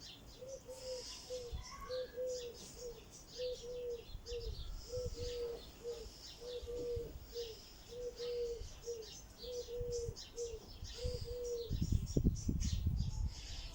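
A dove cooing over and over in a steady repeated rhythm, with small birds chirping high above it. The cooing stops shortly before the end, when a low rumble comes in.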